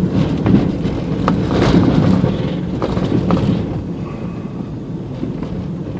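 Car driving, heard from inside the cabin: steady low road and engine noise, with a few light knocks in the first half that fade slightly toward the end.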